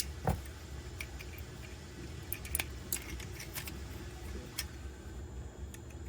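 Clicky keyboard switches being snapped into a 3D-printed plastic fidget toy: a string of sharp plastic clicks at irregular intervals, the loudest about a quarter second in.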